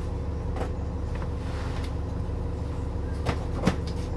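New Flyer XDE60 articulated hybrid bus running steadily, its Cummins ISL9 diesel and Allison H50 EP hybrid drive making a low hum heard from inside the bus. Two short sharp knocks come about three seconds in, half a second apart, the second one the louder.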